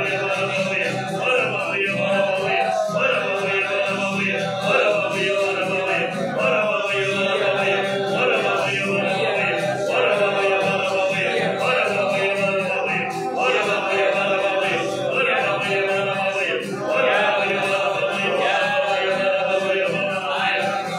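Slow vocal music: singing voices holding long notes, with the phrases changing about every two seconds.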